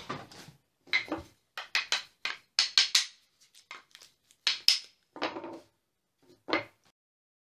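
Small cut-out wooden numerals being handled and set down on a wooden workbench: a run of short, sharp knocks and clatters of wood on wood, bunched in the first few seconds, with a few more later.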